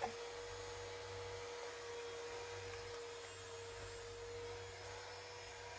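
Small battery-powered handheld fan running near the face: a steady whir with one constant hum over an even airy hiss.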